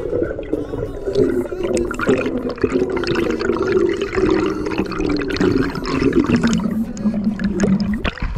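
Water sloshing and bubbling against an underwater action camera as the spearfisher swims up toward the surface. A low droning tone runs underneath; it slides lower and cuts off shortly before the end.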